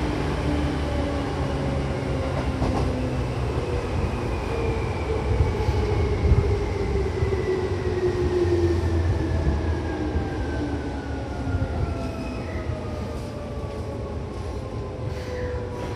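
Seibu 2000 series electric train running, with rumble from the running gear and a motor and gear whine whose pitch falls steadily as the train slows.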